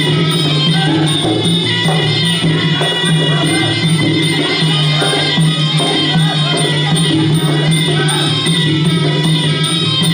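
Traditional Kun Khmer fight music plays without a break: a high, sustained melody over drums and small cymbals.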